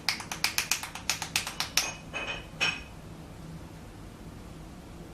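A quick run of sharp clicks, about five or six a second, stopping a little under two seconds in, followed by a brief high squeak.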